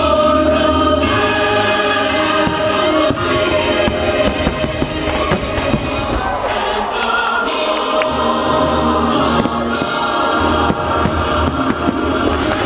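A choir singing over the show's orchestral soundtrack, loud and continuous, with several firework bursts banging over it.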